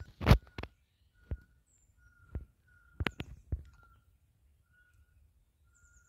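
A bird repeats a short, clear single-pitched note about once a second. Over it come several sharp, irregularly spaced knocks, the loudest right at the start and a quick pair a little after three seconds.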